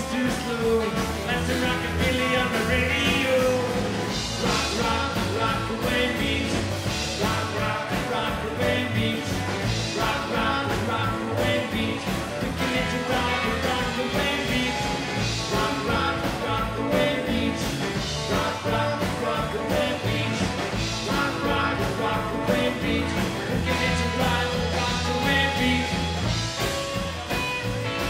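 Live rockabilly band playing an up-tempo number: electric guitar, strummed acoustic guitar, upright double bass and drum kit keeping a steady beat, with a man singing lead.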